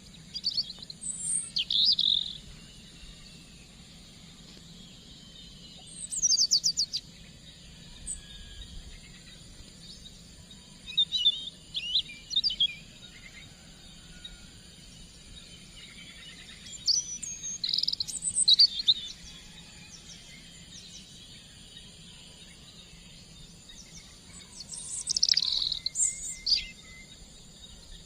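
Wild birds chirping and trilling in short, high-pitched bouts about every five seconds, over a faint steady high-pitched hum like insects.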